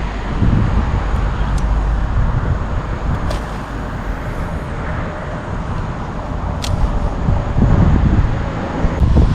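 Wind buffeting the microphone in gusts, over a steady rush of road traffic, with a few faint high clicks.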